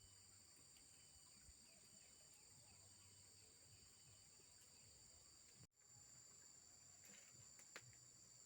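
Near silence: faint outdoor ambience with a steady, high-pitched insect drone and a single click near the end.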